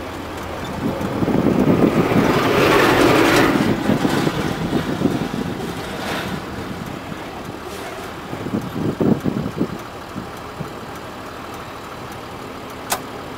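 Bedford 4x4 truck heard from inside its cab, engine running as it rolls slowly along a dirt road. An oncoming truck passes close by, its noise swelling over a couple of seconds and then fading; later come a few louder rattles and a single sharp click near the end.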